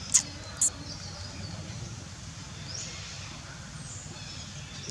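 Outdoor ambience: a steady low rumble with two sharp, high-pitched snaps about half a second apart near the start, and a few faint high chirps later on.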